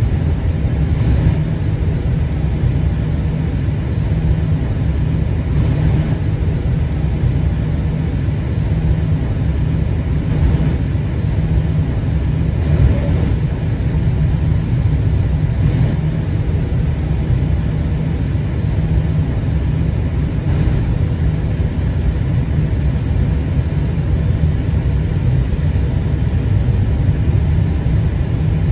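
Steady low rumble inside an Airbus A320 cockpit as the jet taxis over concrete, with the engines running at low taxi power.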